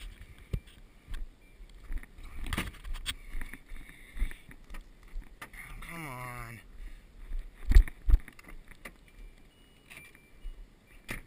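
Handling noises at a car: scattered knocks and clicks, a short creak about six seconds in, then two sharp thumps just under a second later, the loudest sounds.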